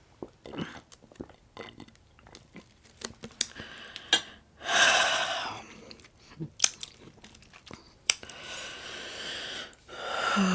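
Close-miked chewing and crunching of breakfast food, with many small wet mouth clicks and crunches. There is a louder breathy, hissing stretch about halfway through and a softer one near the end.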